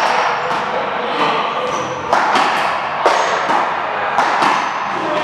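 A rapid run of sharp hits, roughly one to two a second, each a thump, some with a brief high ring, echoing in a large hall: a ball being struck back and forth in a doubles rally.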